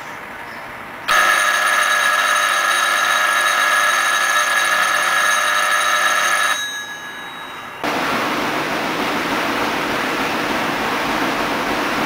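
Electric school bell, switched by a digital timer through relays, ringing steadily for about five and a half seconds and then cutting off: the ring fired by the timer switching off, which this circuit turns into a ring just like a switch-on. About a second after it stops, a steady hiss-like noise comes in.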